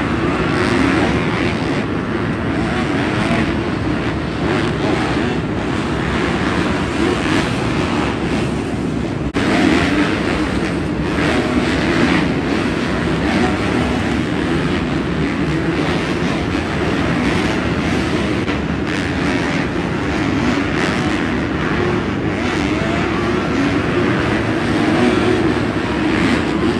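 Several motocross bike engines revving at once as the bikes ride and jump a supercross dirt track. The sound is loud and continuous.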